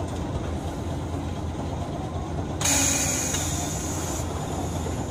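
Steady low rumble of Hiroshima Electric Railway 1900-series tram No. 1905, heard from on board. About two and a half seconds in, a sudden loud hiss of released air starts and fades out over about a second and a half.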